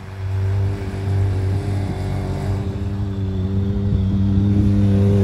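Can-Am Maverick X3's turbocharged three-cylinder engine held on the throttle at a steady high pitch while the side-by-side slides through snow, growing gradually louder.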